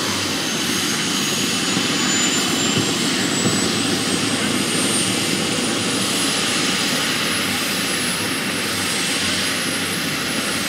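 Model turboprop turbine of an RC scale Embraer T-27 Tucano running, a high whine climbing slowly in pitch over a steady rushing noise.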